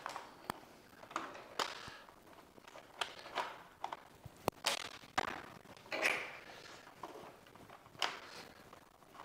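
Cables being pushed and tucked into a cable raceway: scattered sharp clicks and short rustling scrapes at an uneven pace.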